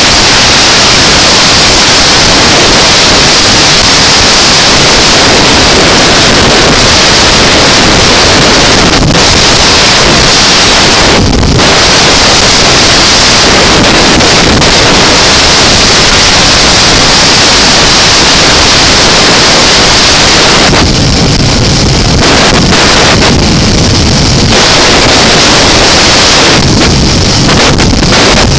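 Heavy, steady wind noise buffeting the camera microphone on a 2005 BMW F650CS motorcycle riding at highway speed, with engine and tyre noise underneath. The hiss eases briefly twice near the end.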